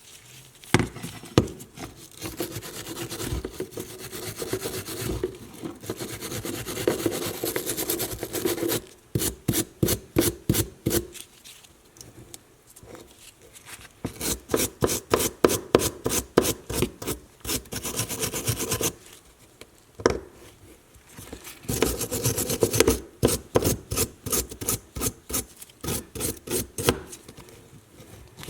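Hand abrasion on the metal of a vintage leather hole punch during restoration: quick back-and-forth scraping strokes, about four a second. The strokes come in runs of several seconds, broken by short pauses.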